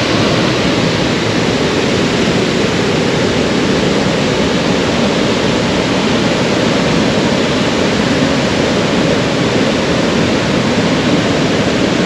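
Steady, loud rush of the Iguazu Falls, a wide row of cascades pouring into the river below.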